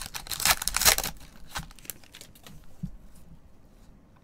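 Foil wrapper of a 2021 Panini Mosaic baseball card pack being torn open and crinkled: a dense crackling rustle for about the first second, then fainter scattered crackles that die away by about three seconds in.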